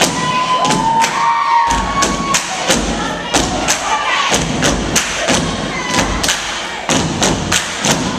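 A step team's boots stomping on a wooden stage in a steady rhythm, about two to three stomps a second. Audience whoops and cheers rise over the stomping in the first couple of seconds.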